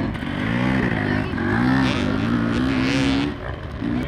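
Dirt bike engines revving on a motocross track, the pitch climbing and falling several times as the throttle opens and closes, easing off briefly about three seconds in.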